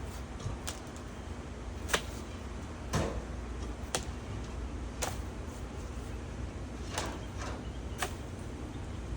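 A series of sharp knocks, roughly one a second with a gap around the middle, over a steady low rumble.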